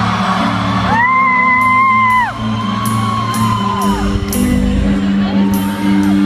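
Rock band playing live in a large hall, picked up by a phone. About a second in, a loud whoop is held for about a second before falling away, and softer calls follow. Sharp high hits come at a regular pace in the second half.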